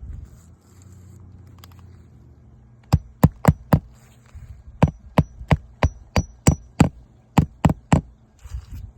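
Hammer driving nails into roof shingles, about fourteen sharp strikes in two runs at roughly three a second, some with a slight metallic ring, as lifted shingles are nailed back down during a repair.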